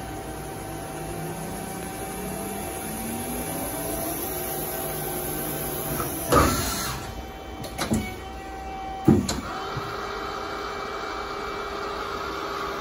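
Hyundai Kia SKT210SY CNC lathe running a demonstration cycle. Its motors whine steadily, with one whine rising in pitch over the first few seconds. Sharp mechanical clunks come about six, eight and nine seconds in, and after them a new steady whine with a hiss settles in.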